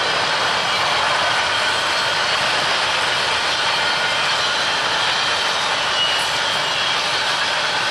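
Covered hopper cars of a grain train rolling past, a steady even noise of steel wheels running on the rails.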